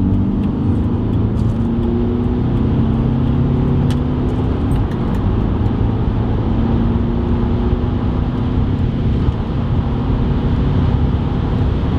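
Audi A4 2.0 TDI diesel engine heard from inside the cabin, accelerating gently up through the gears. There is a break in the engine note about five seconds in, then it pulls again. The driver feels a hesitation under throttle that is still there after the intake manifold change.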